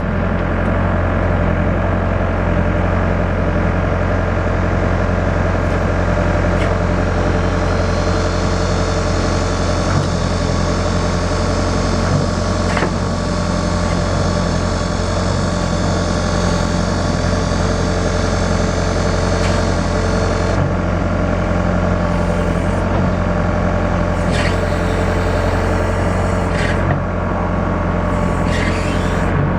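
Backhoe machine's engine running steadily at work, with a high hydraulic whine from about eight to twenty seconds in and scattered knocks of the working machine.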